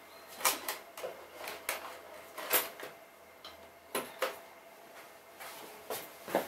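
Irregular clicks and knocks of the pellet extruder parts being picked up and set aside, with sharper knocks about half a second, two and a half and four seconds in.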